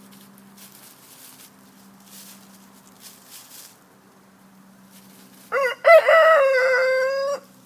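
Rooster crowing once, loud and close, about five and a half seconds in: a cock-a-doodle-doo of a few short notes ending in one long held note that cuts off sharply. Before it there is only a faint steady hum.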